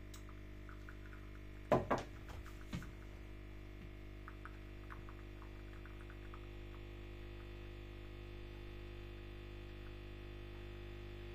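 Ambiano coffee capsule machine humming steadily as it dispenses a large cup. About two seconds in, a ceramic mug knocks down onto the wooden table a couple of times, and faint light ticks follow.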